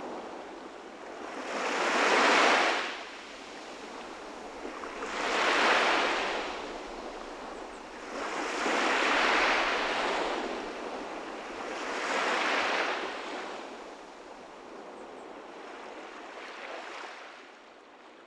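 Sea waves washing onto a shore: five swells of surf about three to four seconds apart, fading out near the end.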